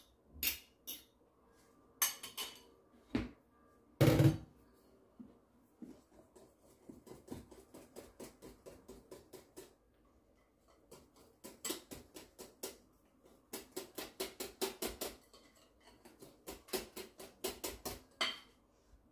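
Wire balloon whisk beating eggs into a yeast batter in a glass bowl, the wires ticking against the glass in a quick, steady rhythm. A few knocks come first, the loudest about four seconds in.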